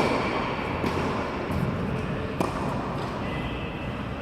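Tennis balls struck by rackets and bouncing on an indoor court: a sharp hit right at the start, then further hits about a second in and near two and a half seconds in, each with a short echo from the hall.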